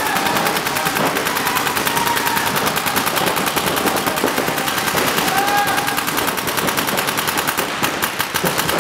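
Paintball markers firing in rapid, continuous streams of many shots a second, their pops overlapping into a steady rattle.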